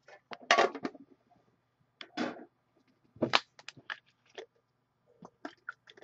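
Handling noises while someone stops to drink water: a box set down, then scattered crinkles and knocks, the loudest just over three seconds in, followed by a run of small clicks.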